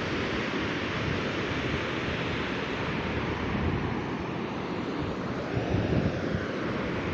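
Sea surf washing steadily on a beach, with wind buffeting the microphone, stronger for a moment about two-thirds of the way in.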